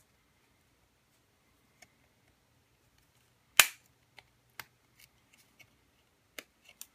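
Small hand cutters snipping the edge of a hard plastic model car body, trimming it smooth: one sharp snip about three and a half seconds in, then a few fainter clicks.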